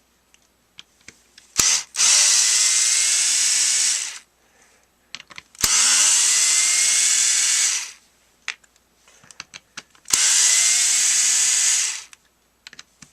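Small cordless electric screwdriver running in three bursts of about two seconds each, each spinning up with a rising whine to a steady speed, backing out T8 Torx screws; light clicks come between the bursts.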